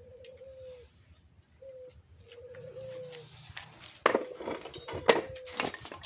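Short cooing calls of a dove, each slightly falling, repeated every second or so. From about four seconds in, several sharp metallic clinks and knocks are the loudest sounds, typical of metal parts or tools being handled.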